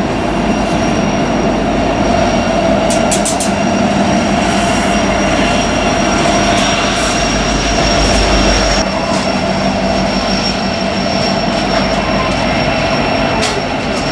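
BNSF empty coal train passing, its two rear distributed-power diesel locomotives running as they go by and pull away, over a steady rumble of wheels on rail with a thin high wheel squeal. A few sharp clicks come about three seconds in and near the end, and the sound eases off slightly after about nine seconds.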